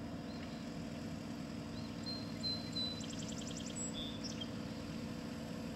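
Marine Travelift mobile boat hoist's engine running steadily while it carries a boat. A small bird chirps and gives a quick trill about three seconds in.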